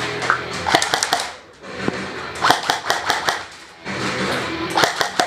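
Airsoft guns firing in three quick bursts of rapid shots, with short gaps between.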